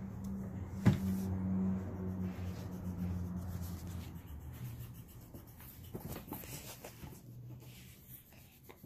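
Black coloured pencil scratching on paper as a patch is coloured in, with one sharp knock about a second in and a low hum through the first half.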